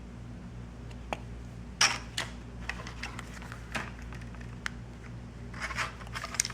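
Handling of a soft vinyl waterproof phone pouch: scattered light clicks and short plastic rustles, the loudest about two seconds in and a cluster near the end, over a steady low electrical hum.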